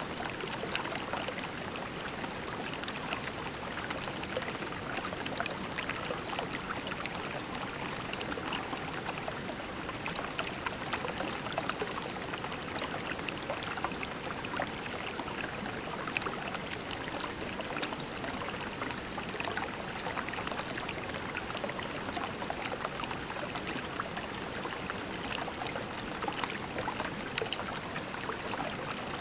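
Creek water flowing over pebbles: a steady babble full of small splashes and trickles.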